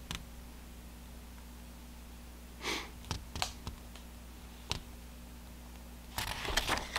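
Quiet room with a steady low hum, broken by a few faint short rustles and soft clicks of a paper sheet being handled; the longest rustles come a little before three seconds in and near the end.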